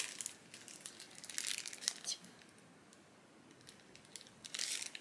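Plastic snack wrapper crinkling in a few short bursts as it is handled, with a quieter stretch in the middle.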